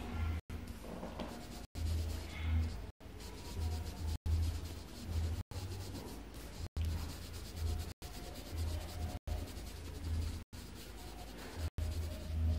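Colored pencil rubbing back and forth on paper in shading strokes, with dull low pulses from the strokes on the table. The sound cuts out completely for an instant about every second and a quarter.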